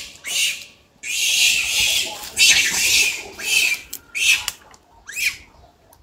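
Infant rhesus macaque screaming in a run of about six high-pitched, raspy shrieks, each a fraction of a second to about a second long. The last shriek, about five seconds in, rises and falls in pitch.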